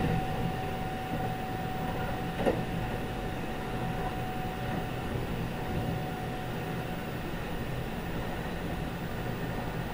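Interior running noise of a Kintetsu 22000 series ACE limited express, heard from the vestibule deck: a steady rumble of wheels on rail with a thin steady whine that fades out about six or seven seconds in, and one sharp clack about two and a half seconds in.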